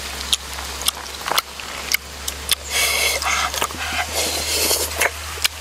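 Cooked shrimp being peeled by hand at close range: sharp clicks and crackles of shell, with two stretches of breathy, wet noise about three and four seconds in.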